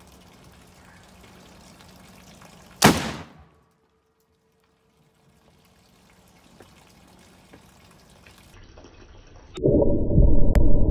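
A sharp bang about three seconds in that dies away within half a second. Near the end a homemade chlorate/perchlorate exploding target goes off: a loud, muffled, deep rumble that carries on.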